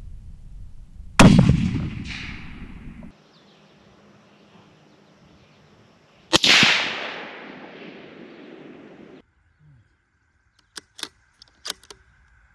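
Two shots from a Tikka T3x CTR bolt-action rifle in 6.5 Creedmoor, about five seconds apart, each a sharp crack with an echoing tail that fades over two to three seconds. A few quick clicks follow near the end.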